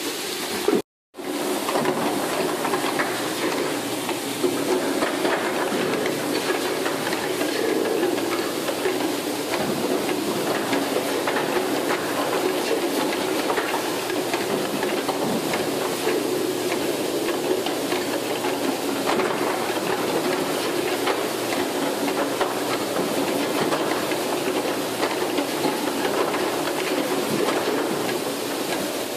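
Bottle unscrambler running with its conveyor and feed screw: a steady mechanical hiss and hum with light, irregular clatter of plastic bottles being carried along. The sound cuts out completely for a moment about a second in.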